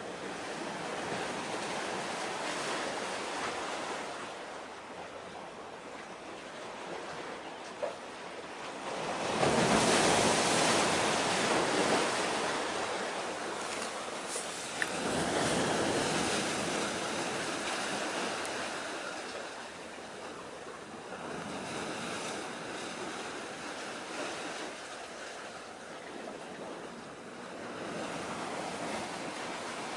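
Sea wind and surf: a rushing noise that swells and eases in gusts, loudest about ten seconds in and again around fifteen seconds in.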